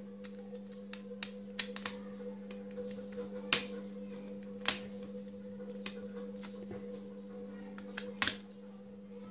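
Sparse small clicks and taps of screws being worked out of a computer keyboard's circuit board in its plastic case, the sharpest about three and a half seconds in and another near the end, over a steady low hum.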